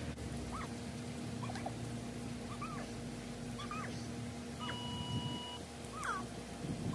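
Short squeaky chirps, rising and falling, about once a second over a steady low hum. About two-thirds of the way in, an electronic beep is held for about a second.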